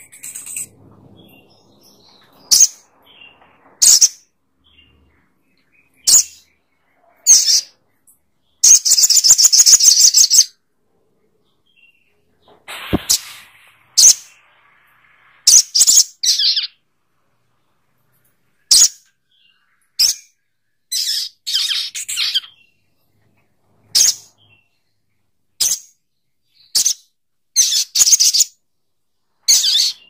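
Olive-backed sunbird calling: short, high, sharp chirps at irregular gaps of one to two seconds, with one longer rapid trill about nine seconds in.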